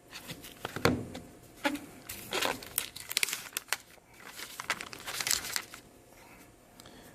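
Plastic packaging crinkling and tearing in irregular bursts as it is pulled open by hand, quieter near the end.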